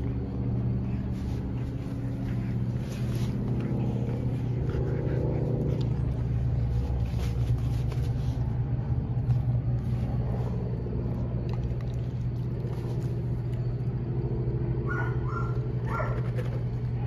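Husky-type dog making a continuous low rumbling growl while chewing a plush toy, a play rumble likened to a cat's purr. A few short, higher whines come in about fifteen seconds in.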